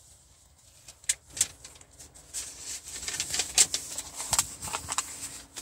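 Crinkling and rustling of clear plastic protective wrap on new car seats and headrests: irregular sharp crackles that start about a second in and grow busier, over a faint steady hum.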